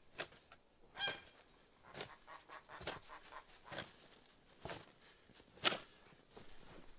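A domestic goose honks about a second in. Then a snow shovel scrapes into and tosses packed snow in a run of strokes about once a second, the loudest near the end.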